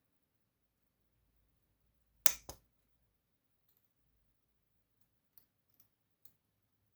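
Small sharp clicks from a DOM Plura lock being disassembled, its parts and pins handled with tweezers: two clear clicks about two seconds in, then a few faint ticks.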